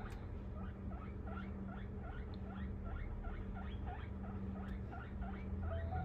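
Guinea pig wheeking: short high squeaks repeated quickly and evenly, about three or four a second.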